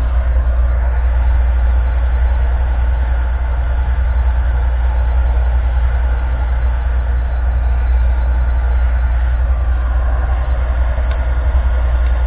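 Electric heat gun running steadily, a low hum under an even rush of blowing hot air.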